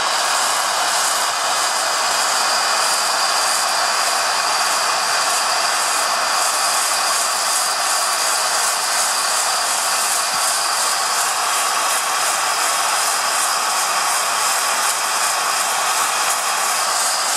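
Heat gun blowing hot air steadily into a stainless flour sifter, with a Milwaukee M12 cordless drill turning the sifter's agitator through green coffee beans. This is early in the roast, with no cracking yet.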